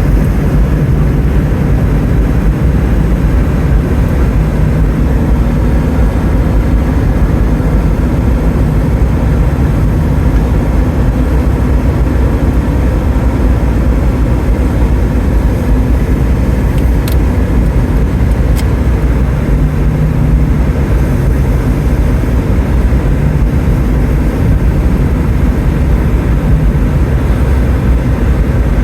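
Steady low rumbling road and engine noise of a car driving, with two faint clicks a little past the middle.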